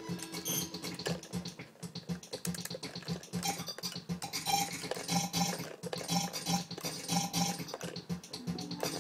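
Circuit-bent Akai S-20 sampler playing Moog synthesizer samples, glitched by the joystick bend into a rapid stuttering crackle of clicks. About a third of the way in, a short repeated tone starts chopping in and out in a rhythm over it.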